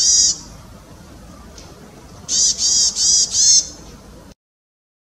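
Chestnut-bellied tit calling: one call at the very start, then a quick run of four calls about two seconds in. The sound cuts off suddenly near the end.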